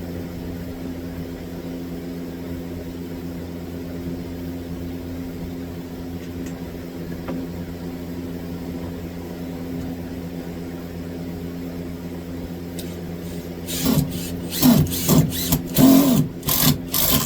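A steady low hum, then near the end a power drill driving a screw into a wood patch board in several short bursts of the trigger, its pitch rising and falling with each pull.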